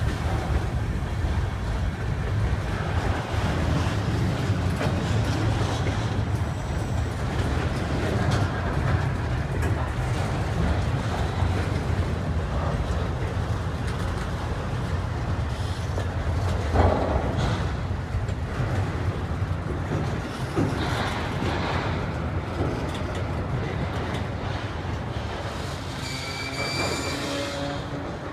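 Freight train rolling past: a steady rumble of railcars on the track with occasional knocks, and a brief high wheel squeal near the end.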